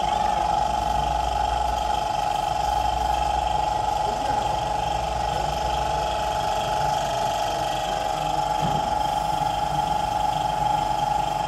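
A steady mechanical hum with one constant, unchanging tone and a low rumble beneath it.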